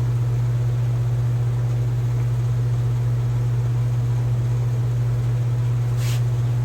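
Steady low hum of machinery or a fan, with a faint even hiss, and a single faint click about six seconds in.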